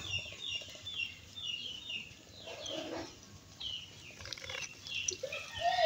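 Birds chirping over and over in short high notes, with dry leaves rustling twice as the cat noses through them, and some lower calls near the end.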